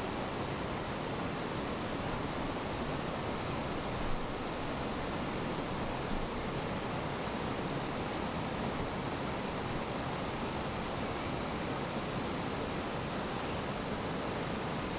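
Steady rushing of flowing water around the wading anglers, an even hiss that holds at a constant level.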